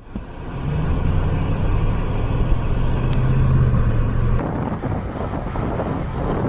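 A motor vehicle's engine hum under a steady rushing noise; the hum drops out about four and a half seconds in, leaving the rushing.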